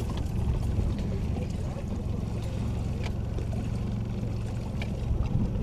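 Boat engine running steadily with a low hum, with a few light clicks and knocks from handling gear in the boat.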